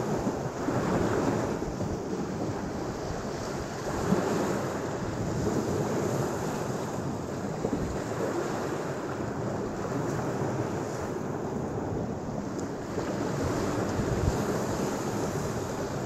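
Lake Michigan waves breaking on a sandy shore and splashing against old steel pilings: a steady rush of surf that swells and eases every few seconds, with wind rumbling on the microphone.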